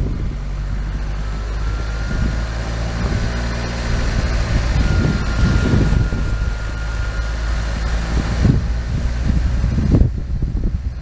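A vehicle engine running steadily on the move, under a heavy low rumble of wind on the microphone.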